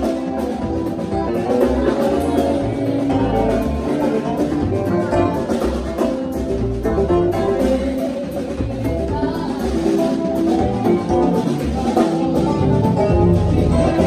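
Live gospel band playing together: keyboards, drum kit and guitar in a full, continuous groove.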